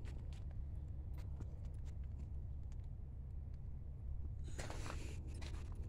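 A steady low rumble with scattered small clicks, and a short stretch of footsteps crunching on gravel about four and a half seconds in.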